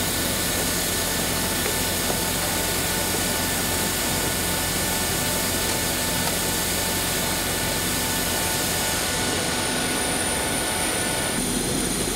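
Steady rushing noise and high whine of jet aircraft running on the airport ramp, beside the parked plane. The sound shifts a little near the end.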